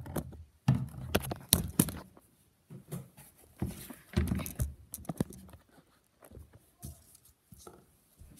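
Irregular knocks, taps and rubbing noises of things being handled and set down on a bathroom counter, loudest and busiest in the first two seconds, with another cluster around the middle and fainter taps near the end.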